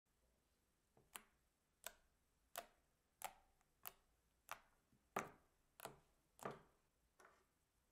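Fingertips poking into a slab of white slime, each poke giving a short, sharp pop. There are about ten pops at an even pace, roughly one every two-thirds of a second, starting about a second in.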